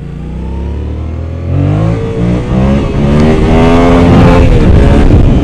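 Yamaha FZ-07 parallel-twin engine running steadily, then revving hard from about a second and a half in, its note climbing and getting louder, with the pitch falling again near the end.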